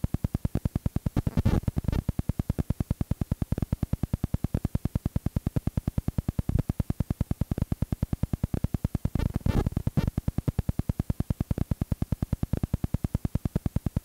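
Rapid, even pulsing buzz, about ten pulses a second, with two short bursts of hiss about a second and a half in and again near nine and a half seconds: electrical noise on a blank stretch of home-video tape.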